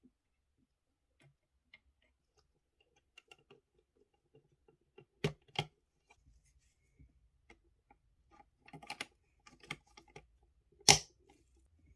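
Small clicks and taps of a scale model car's parts and hand tools being handled on a work surface: scattered light ticks, two sharp clicks about five seconds in, a flurry around nine seconds, and a louder knock near the end.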